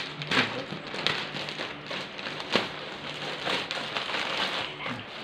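Thin plastic courier pouch crinkling and crackling as it is torn open and pulled apart by hand, with several sharp snaps, the loudest about two and a half seconds in.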